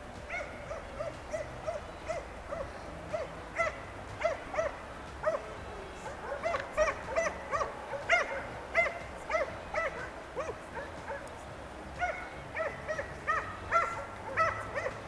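Hunting dog giving tongue on a hare's trail: a long run of short, high yelping barks, about two to three a second at an uneven pace.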